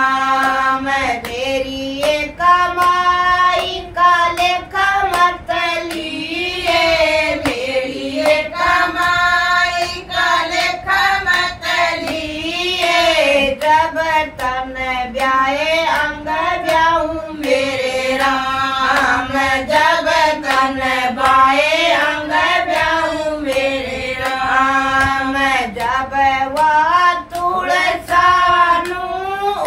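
A small group of women singing a folk devotional bhajan without instruments, with steady hand claps keeping the beat.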